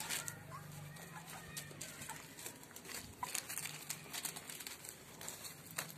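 Faint short animal calls over a low steady hum, with scattered clicks and rustles of movement.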